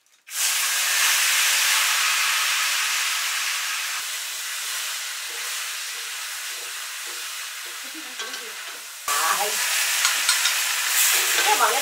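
Food sizzling in hot oil in a cooking pan. The sizzle starts suddenly, fades slowly, and about nine seconds in comes back louder.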